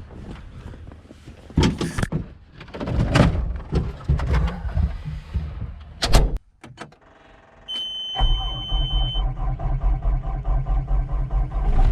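Clattering and knocks from the operator climbing into the Cat tracked skid steer, then a high steady warning beep as the key is turned. The skid steer's diesel engine starts about eight seconds in and settles into a steady low idle for a cold-morning warm-up.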